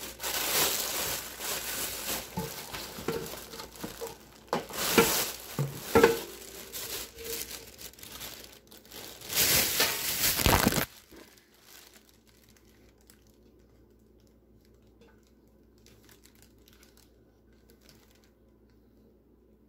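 Plastic wrapping crinkling and rustling against cardboard as a pan is pulled out of its packaging, with a few sharp clicks. It stops a little over halfway through.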